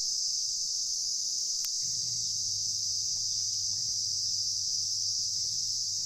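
Steady, high-pitched chorus of insects: a continuous shrill drone with no break.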